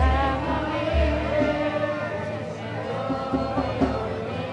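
Many voices singing a song together, with deep low bass notes coming and going underneath.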